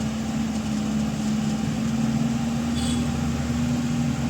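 Maruti Super Carry's four-cylinder engine idling steadily on CNG, all four cylinders firing with no misfire.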